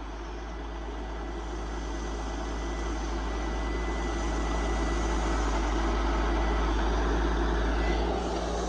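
Diesel engine of a Kenworth self-loading logging truck running steadily while it powers the hydraulic loader, growing gradually louder, with a faint steady high whine over a deep rumble.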